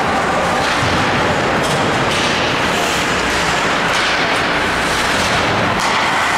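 Ice hockey game in an indoor rink: a loud, even rush of noise from play on the ice, with a few sharp stick-and-puck clicks.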